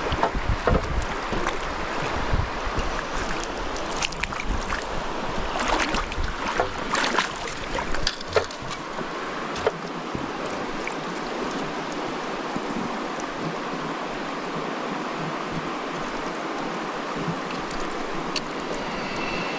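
Steady rush of moving water, with wind buffeting the microphone for the first half and a few sharp clicks or small splashes a few seconds in.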